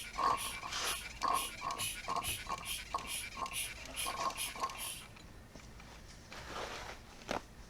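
Hand vacuum pump of a brake bleeder kit being pumped in quick strokes, about two or three a second, slurping old oil and debris out of a Mazda Miata's shifter turret. The pumping stops about five seconds in, and a single click follows near the end.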